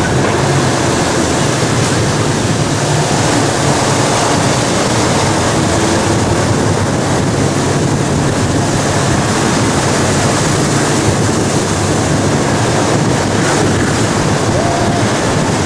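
A bus driving, its engine humming steadily under a dense rush of wind and road noise on a microphone held out of an open window.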